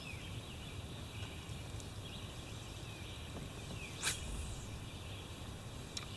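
Quiet river ambience: a steady, even hiss, with a faint bird chirp at the start and a few short clicks, one about four seconds in and two near the end.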